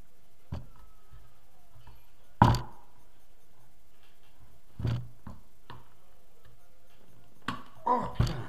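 Heavy cross-shaped rotor sections of a homemade alternator knocking against each other and against a wooden tabletop as they are slid apart by hand. A sharp clack about two and a half seconds in is the loudest, with further softer knocks near five seconds and a small cluster near the end.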